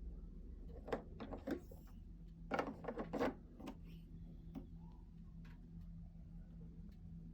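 Steady low whine from the fuel tank area of a 2018 Vespa GTS 300, with a few irregular clicks and knocks over it, loudest a little after two and a half seconds in.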